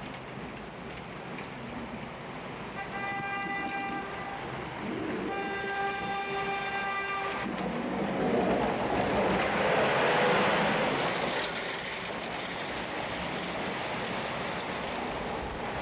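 A vehicle horn sounds twice in a single steady pitch, a short blast followed by a longer one. Then a vehicle passes close by, its noise swelling and fading, over steady city traffic hum.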